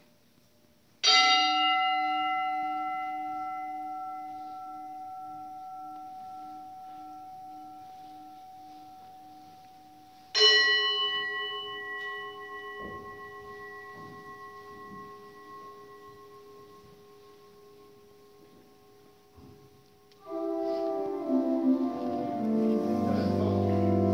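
Altar gong struck twice for the blessing with the Blessed Sacrament, about a second in and again about ten seconds in, each stroke ringing out slowly for several seconds. About twenty seconds in, church organ chords with a deep bass begin to play.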